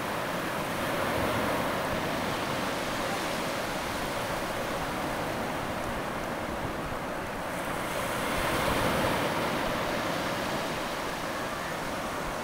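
Shallow surf washing over wet sand: a steady rushing of water that swells about a second in and again around eight to nine seconds in.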